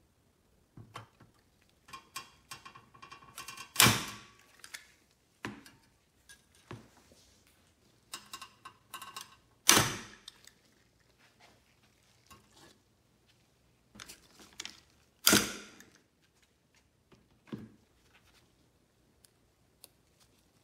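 Long-handled hand pop riveter setting blind rivets: a run of small clicks as the handles are worked, then a sharp snap as the rivet's mandrel breaks off. This happens three times, about six seconds apart.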